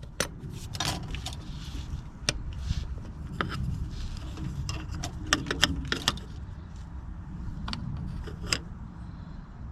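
Scattered sharp metal clicks and clinks of hand work on the dozer's engine, taking off the distributor cap, over a steady low rumble.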